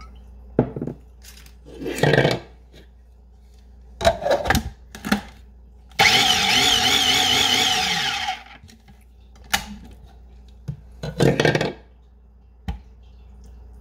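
Food processor running for about two and a half seconds, starting about six seconds in, blending a vinaigrette. Its motor whine wavers, then falls in pitch as it spins down. Before and after, the plastic lid and bowl knock and clunk as they are fitted and taken off.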